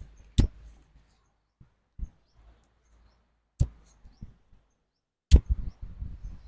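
Three sharp knocks, about three seconds and then under two seconds apart, each followed by a few softer thuds.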